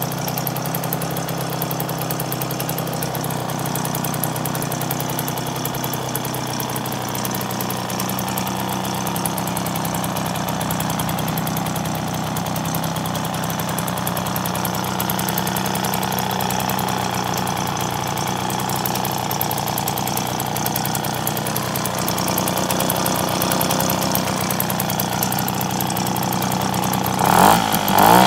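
1959 Stadion S11 moped's single-cylinder two-stroke engine idling steadily. About a second before the end it is revved briefly, its pitch rising and falling.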